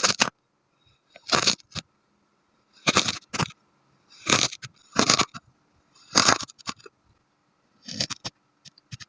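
Kinetic sand being squished and crunched: a series of short, crisp crunches, about eight of them, each lasting a fraction of a second, with short pauses between them.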